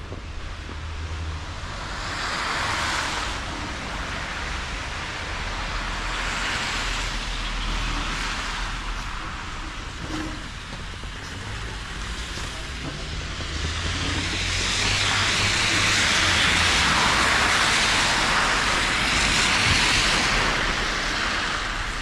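Street traffic on a wet, slushy road: the hiss of tyres swells and fades as cars go by, with one longer, louder pass in the second half.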